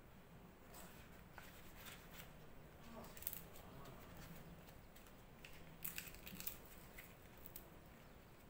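Faint rustling and crinkling of a large fresh leaf being folded around a portion of rice, with a few small clicks.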